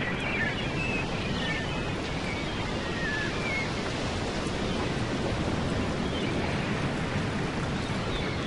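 Steady rushing noise, with a few faint high chirps in the first few seconds.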